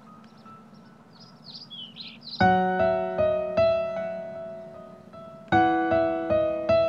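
Soft piano background music that swells into louder struck chords about two and a half seconds in and again past the middle, each chord ringing away. A few short bird chirps sound just before the first loud chord.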